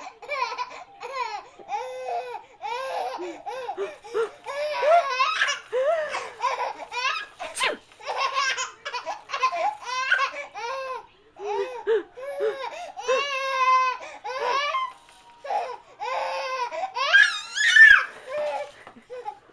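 Baby giggling and laughing in a string of short bursts, with a longer laugh in the middle and a loud rising squeal of laughter near the end.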